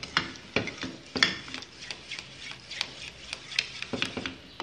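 Black spatula scraping and stirring around the bottom of an aluminium saucepan holding melted butter and a milky mixture, in a run of short, irregular scraping strokes.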